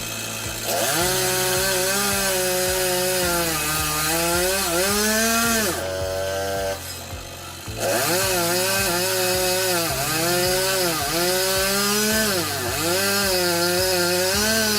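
Chainsaw running at high revs while cutting into a tree trunk, its pitch dipping and recovering as the chain bogs and frees in the wood. It eases off for about two seconds near the middle, then cuts again.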